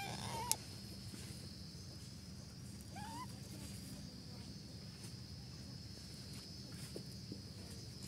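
Young parakeets give a few short, faint squeaky chirps, one just at the start and one about three seconds in. A sharp click comes about half a second in. A steady high-pitched whine and a low hum run underneath.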